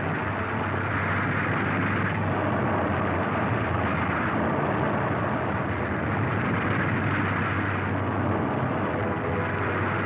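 Tanks and armoured vehicles moving in column: a steady din of engines running and tracks rolling, with a constant low hum underneath.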